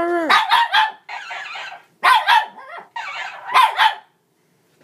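Shih Tzu puppy barking at a toy in three short bursts about a second and a half apart, with grumbling between the bursts.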